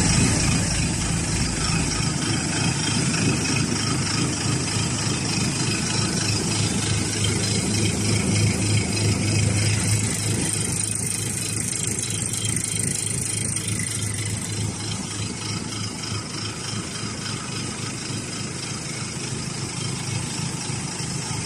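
Engine of a JBT40 concrete mixer pump running steadily at a constant speed, with a strong low hum; it eases a little over the second half and cuts off abruptly at the end.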